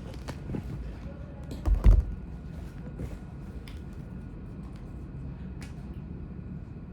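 Scattered light clicks and taps over a low steady hum, with a heavier thump about two seconds in.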